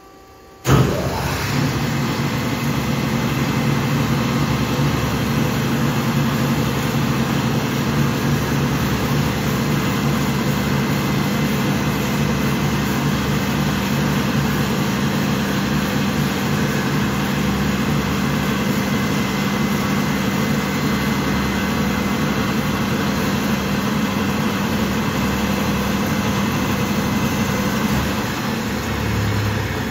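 Amada HA-16S horizontal band saw switched on with a sudden start about a second in, then running steadily with a low hum. The sound eases off slightly near the end.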